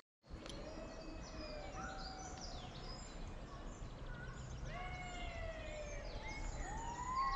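Woodland ambience: birds chirping and calling, with several long gliding calls, over a steady low rumble. The sound cuts in just after a brief silent gap at the start.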